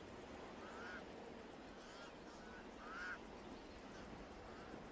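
Pied crows giving several short, faint cawing calls, the loudest about three seconds in, over a fast, high-pitched ticking.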